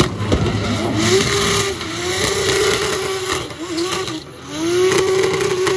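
Drift car's 1JZ straight-six held at high revs through a smoky drift, its pitch wavering and rising with the throttle over tyre noise. A little past four seconds in the engine drops away briefly, then climbs back up.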